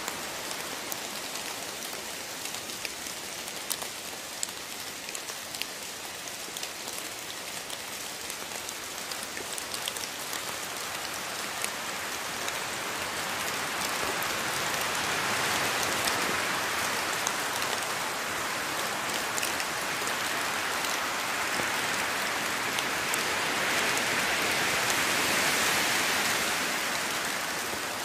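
Steady rain with many individual drops pattering through it, growing heavier about halfway through and swelling again near the end.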